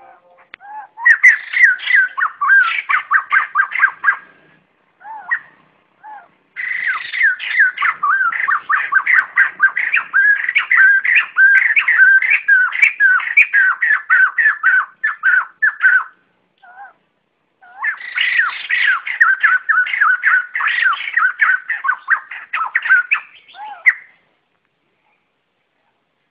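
White-crested laughingthrushes giving their flock call: three long runs of rapid, loud repeated notes, with a few single calls between the runs. The calls stop a couple of seconds before the end.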